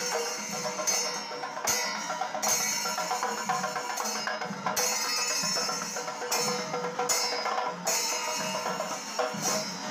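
Kerala temple percussion ensemble (melam) playing: drums with metal ilathalam hand cymbals clashing in repeated bursts every second or two, over sustained tones from kombu horns.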